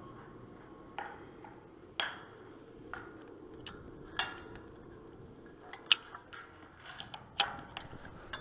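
Metal pole-line hardware being handled: about a dozen sharp, irregular clicks and clinks of steel parts knocking together, the loudest a little before six seconds in.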